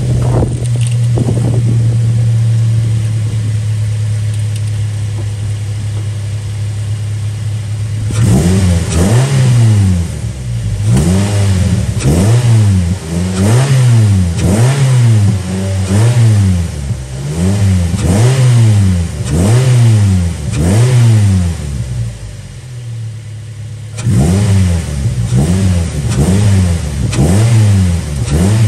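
Mazda MX-5's four-cylinder engine idling steadily, then revved up and down again and again, about one blip every second or so, through a newly fitted AEM cold air intake with its cone filter open to the air. There is a short lull at idle near the end before the revving resumes.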